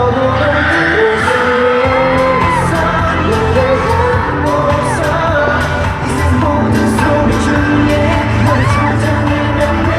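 Live K-pop concert music: a vocalist singing a melody over a steady beat.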